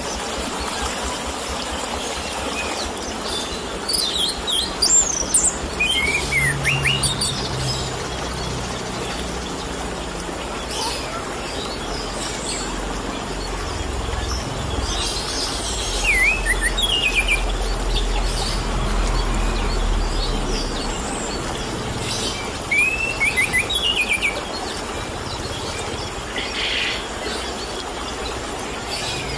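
Orange-headed thrush singing short, high whistled phrases every few seconds over a steady trickle of running water.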